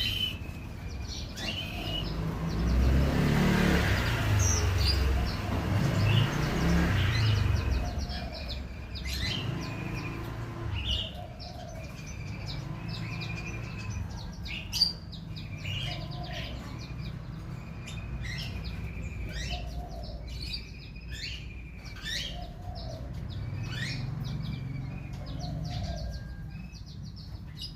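Small songbirds chirping in short, quick high notes, with a low call repeated about every two seconds in the background, like a dove cooing. A low rumble sits under the first several seconds.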